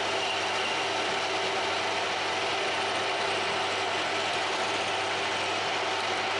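Metalworking machine tool running steadily while machining a small stainless steel nut: an even mechanical whir with a steady gear-like hum, without pauses or changes.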